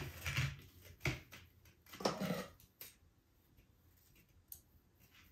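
Ribbon and lace being handled by hand: a few brief rustles and soft handling noises in the first two and a half seconds, then only faint ticks.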